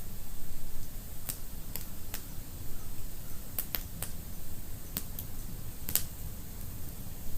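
Fireplace fire crackling: sharp, irregular pops and snaps, roughly one or two a second, over a low steady rumble.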